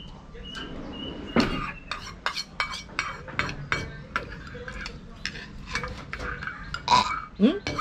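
Metal spoons clinking and scraping against small bowls during eating, a run of many short, sharp clinks. A brief voice sound near the end.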